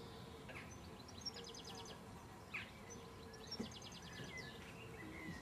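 A small songbird singing a short, fast trill of high, evenly spaced notes, twice about two and a half seconds apart, over faint background hush.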